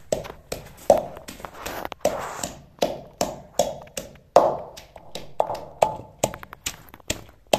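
Wooden pestle pounding fresh coriander and green chillies with spices in a clay mortar. Steady strokes, about two and a half a second, each a knock followed by a short crushing sound.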